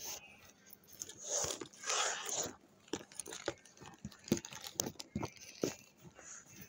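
Handling noise from a phone held close to its microphone: two short rustles, then a series of light clicks and knocks.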